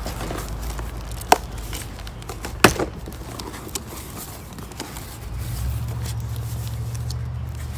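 Cardboard box being opened by hand: flaps pulled back and handled, with two sharp snaps, one about a second and a half in and one near three seconds. A low steady rumble comes in about five seconds in.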